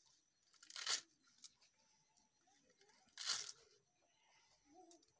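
A bunch of leafy greens being sliced against a bonti, a curved blade fixed on a foot-held base: two crisp cuts, about a second in and again a little past three seconds in, with a sharp tick between them.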